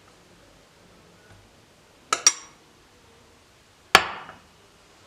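Dishes and utensils clinking: two quick bright clinks about two seconds in, then a single heavier knock near four seconds with a short ringing tail.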